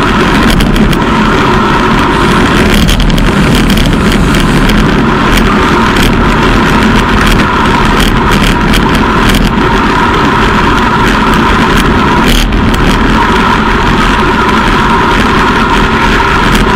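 Loud, steady wind and road noise on a bicycle-mounted camera at about 45 km/h, with motor traffic alongside and scattered short clicks and knocks from the ride over the road surface.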